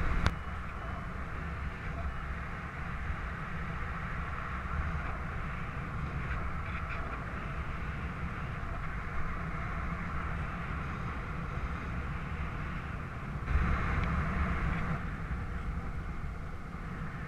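Wind rushing over the microphone of a paraglider's harness-mounted camera in flight: a steady, deep noisy rush that swells louder for about a second and a half some three-quarters of the way through.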